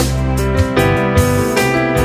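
Instrumental music: piano with keyboard-synth backing over sustained bass notes, with regular short percussive hits about twice a second.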